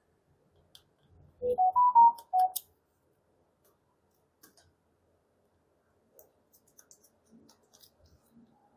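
A short electronic chime of about five pure notes, rising then falling, about a second and a half in. Faint small clicks and taps follow.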